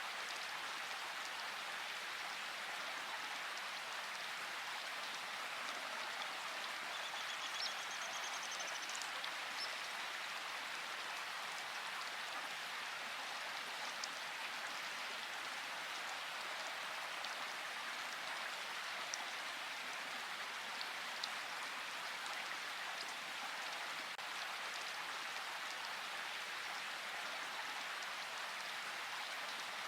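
Steady rain falling, an even hiss, with a few sharper drip ticks standing out here and there.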